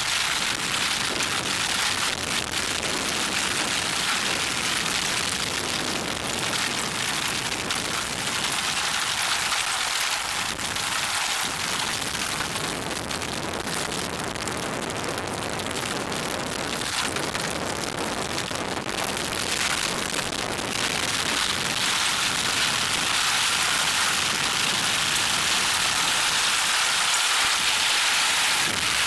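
Steady, even hiss of noise, strongest in the upper range and without distinct events, rising slightly in level toward the end.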